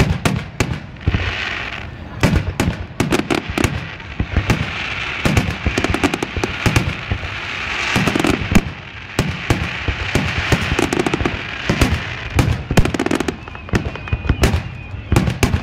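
Aerial firework shells bursting in quick succession, a dense, irregular run of sharp bangs with no pause, loud and close.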